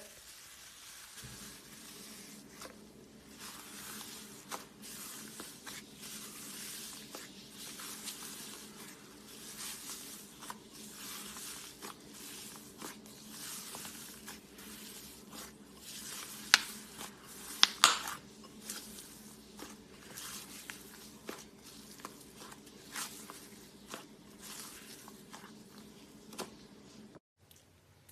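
Gold foil slime being squished, stretched and folded by hand: irregular sticky, wet crackling with a few sharp, louder pops a little past halfway.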